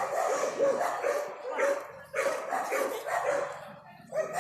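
Dog barking over and over in short, quick barks, about two to three a second, with a brief pause about two seconds in.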